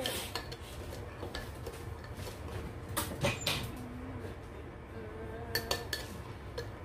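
Metal spoon clinking and scraping against a ceramic bowl as a child stirs a topping mixture, with scattered light clinks, a cluster of them about halfway through.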